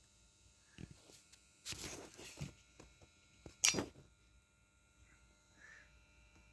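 Scattered handling noises: a few soft clicks and rustles, then a short, sharper noise about three and a half seconds in, over a faint steady hum.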